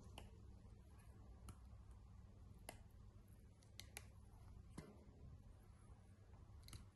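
Faint, scattered clicks and light taps, about seven over several seconds, from items being handled during an unboxing, over a low steady hum.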